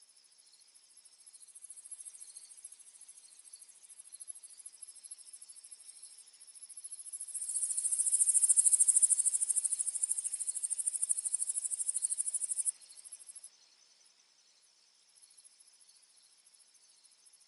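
Insects trilling steadily at a high pitch, cricket-like, with several overlapping pulsing rhythms. About halfway through, one louder, nearer trill swells in, then cuts off abruptly a few seconds later.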